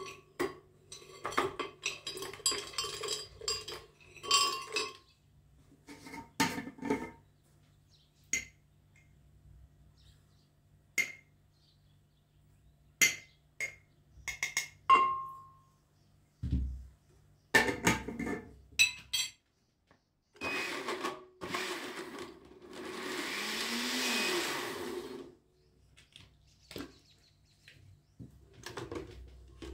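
A metal spoon clinks and knocks against a glass blender jar as fruit, honey, water and oats are dropped in, in a run of short separate knocks. Then the blender motor runs for about three seconds, churning the mixture.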